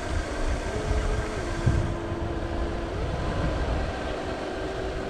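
Wind buffeting the microphone, a dense low rumble, with a faint steady hum underneath that drops in pitch about a second in and rises back about three seconds in.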